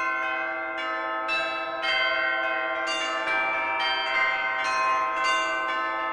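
Bells ringing, struck one after another at about two strokes a second, each stroke ringing on under the next.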